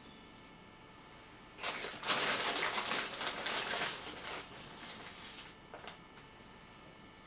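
Crackling, clicky rustle lasting about three seconds, from rosin being tipped out of a plastic bag onto the pan of a weighing balance, with a small click near the end.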